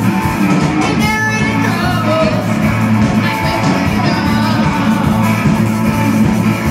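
Live rock band playing loud: electric guitars, bass and drums, with a singer's voice over them, in a large hall.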